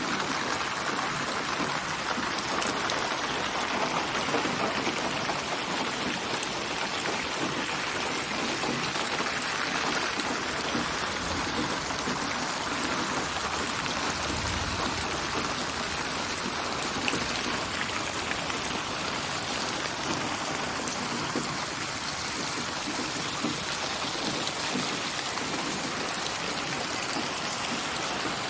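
Steady rain falling: an even, unbroken patter of drops.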